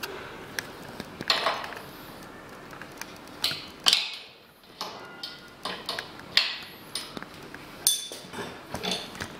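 Steel open-end spanner clinking and knocking against the upper punch fittings of a manual single-punch tablet press as the hardness adjustment is loosened and turned: irregular metallic clicks and clanks.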